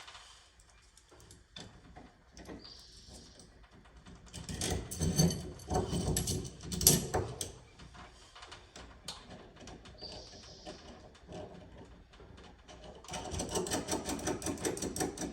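Steel nuts and washers clinking and rattling as they are threaded onto all-thread rods, with two stretches of rapid clicking as nuts are spun up the threads, and two brief hisses.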